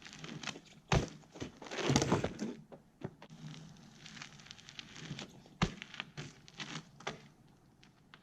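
BMX bike being ridden and landed in snow: two sharp thuds, about a second in and a little past halfway, with a stretch of crunching, scraping noise around two seconds in.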